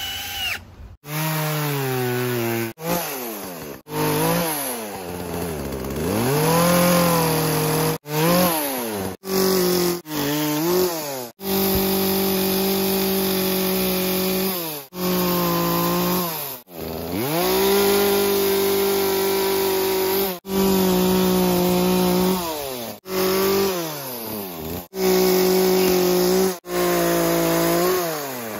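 Poulan Pro gas chainsaw running hard and cutting wood, its engine pitch holding high, then sagging and climbing back again and again, with many short abrupt breaks. A drill whines briefly at the very start.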